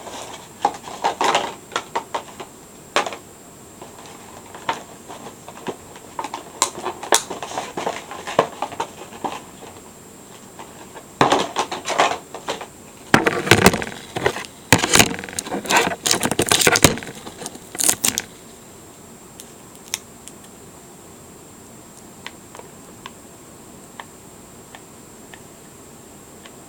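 Irregular plastic clicks, taps and rattles of a figure and its display stand being handled and fitted together, busiest over the first two-thirds, then stopping.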